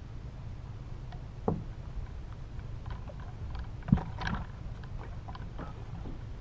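Two dull thumps on a boat deck, about a second and a half in and again near four seconds (the louder one), with light clicking and rustling between, over a steady low rumble: an angler getting up and handling a freshly caught largemouth bass on the deck of a bass boat.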